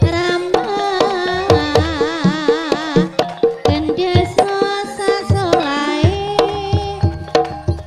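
Javanese gamelan music accompanying an ebeg horse dance: hand drums beating a brisk rhythm under pitched metal and melody parts, with a wavering vocal line.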